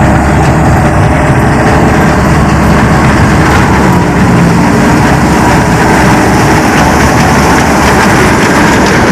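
Combine harvester running steadily and loudly, its heavy engine holding a constant low hum.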